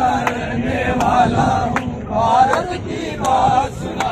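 A crowd of men chanting slogans in unison, with a sharp regular beat a little more than once a second.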